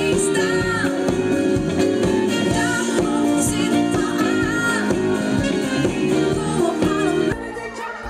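Music with singing over a steady beat, which cuts off abruptly about seven seconds in.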